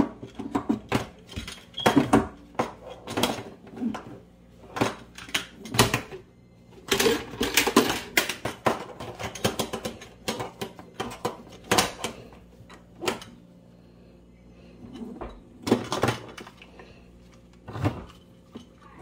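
Irregular clicks, taps and light rattles of a kitchen faucet's sprayer hose and fittings being handled and fed down through the sprayer base into the stainless-steel sink, with a busier flurry of knocks about seven seconds in and again near the end.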